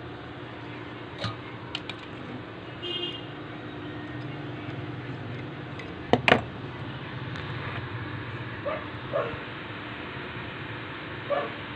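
Workbench handling sounds during soldering work on an amplifier board: a few light clicks, then two sharp knocks close together about six seconds in, over a steady low hum. A few short, faint calls are heard near the end.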